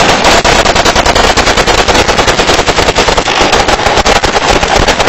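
Automatic rifles firing continuously on full auto, shots coming too fast to count, with no pause.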